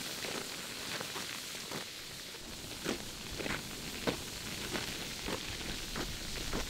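Footsteps through dry grass and brush at a slow, even walking pace, with rustling as a heavy bag is dragged along over a steady outdoor hiss.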